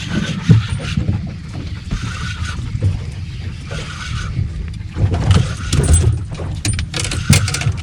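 Wind rumble and water noise around a small aluminium fishing boat, with a cluster of sharp clicks and knocks about five to seven seconds in.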